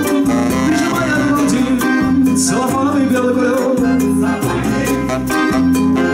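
Live band playing an instrumental passage: saxophone over bass guitar and drums, with a can shaken in rhythm close to a microphone as a shaker.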